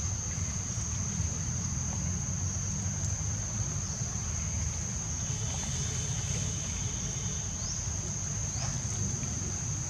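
Insects droning: one steady, high-pitched buzz that does not vary, over a low rumble of wind on the microphone.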